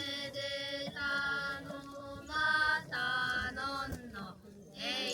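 A single voice chanting or singing a slow line of long held notes, each held steady for about half a second to a second, with a short break near the end.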